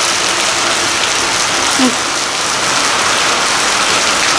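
Steady rain falling, an even hiss of rain that holds at the same level throughout.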